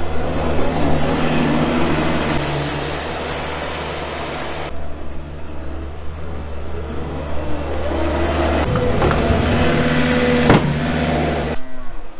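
New Holland skid steer loader's engine running steadily, cutting off sharply shortly before the end.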